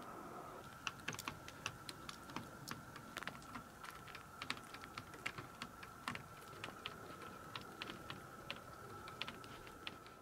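Irregular sharp ticks, a few a second, of the first drops of an incoming storm striking a hard surface, over a faint steady high tone.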